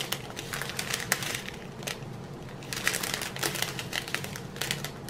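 Small plastic zip-lock bags of round diamond-painting drills being handled and shuffled in the hands: the plastic crinkles, with many small irregular clicks.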